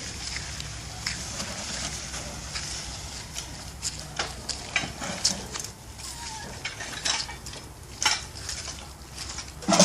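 Irregular clicks and knocks of objects being handled, with one louder knock at the very end, over a steady low hum.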